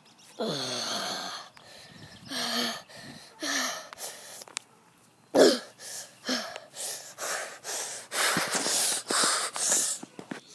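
A person's voice making wordless vocal noises: a drawn-out falling cry near the start, a few short grunts, then a run of quick breathy huffs and wheezes, about two a second, through the second half.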